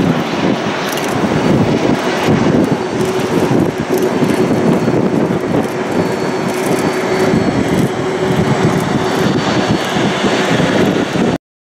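Boeing 777 jet airliner on its landing approach, its engines running with a loud, steady rushing noise and a held low hum. The sound cuts out abruptly for a moment near the end.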